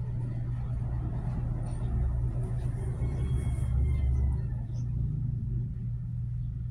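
Steady low rumbling hum, swelling slightly from about two to four seconds in.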